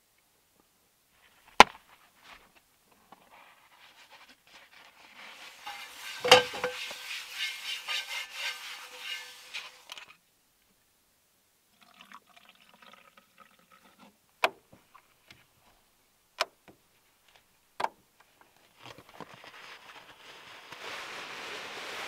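White wine glugging from a glass bottle into a metal cup, among scattered sharp clicks and knocks. Near the end comes a rustle of a nylon sleeping bag being handled.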